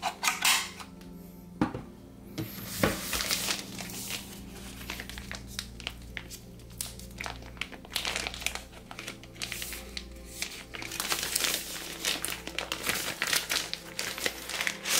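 Plastic packaging bags crinkling steadily as they are handled and unwrapped, after a few light knocks in the first three seconds. Background music plays underneath.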